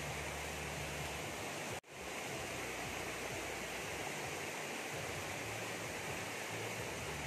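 A steady, even rushing noise with no distinct events, broken by a sudden brief dropout just under two seconds in.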